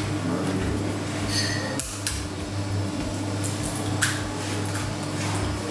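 Kitchen clatter while cooking: a few knocks and a brief clink of utensils against dishes, over a steady low hum.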